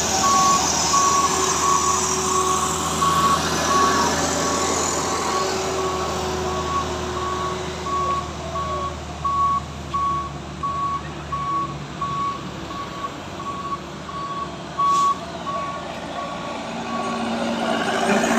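Truck reversing alarm beeping steadily at one pitch, about one and a half beeps a second, over diesel engine rumble, as a truck that ran out of power on the climb backs down the slope. The beeping stops near the end as traffic noise swells.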